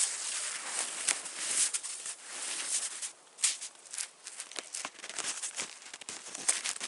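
Snow being dug out by hand from a tarp shelter's roof: irregular crunching and swishing as handfuls of snow are scooped and pushed aside, with a few sharper crunches.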